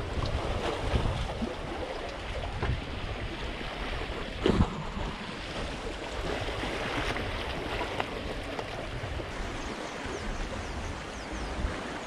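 Sea waves washing against the concrete tetrapods of a breakwater, with wind buffeting the microphone. A single sharp knock about four and a half seconds in.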